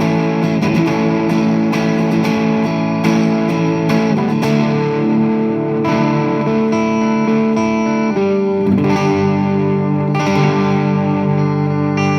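Electric guitar played through an Alien Rabbit Magic Drive tube overdrive pedal into a Fender amp at low gain: chords picked and left to ring with a mild overdriven edge, moving to a new chord every two seconds or so.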